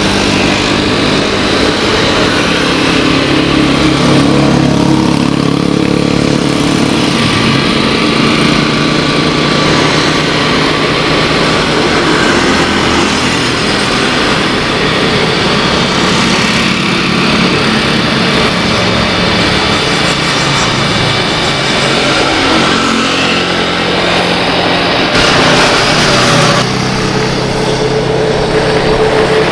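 Boeing 787-8 Dreamliner jet engines at takeoff thrust, a loud steady roar with a low drone as the airliner rolls down the runway and lifts off. Near the end the sound changes to an Airbus A320's engines on final approach.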